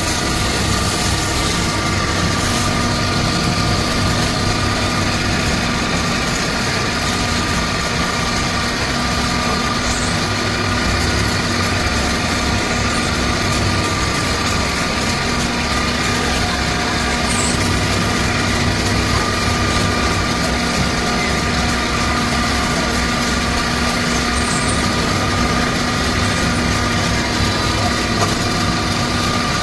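Belt-driven lathe running steadily, spinning a turned wooden charpai leg: a steady motor hum with a constant higher whine.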